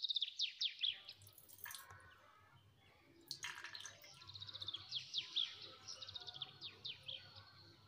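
Songbird singing: runs of rapid, high chirps, each falling in pitch, in two long phrases with a pause between. Two short hisses break in, about one and a half and three and a half seconds in.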